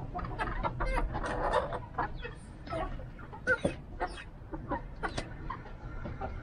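A small mixed flock of hens clucking, a run of short, scattered calls, while they peck at greens on the ground.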